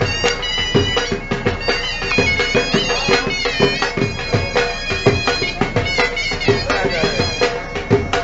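Bagpipes playing a melody over a steady drone, with a drum beating about twice a second.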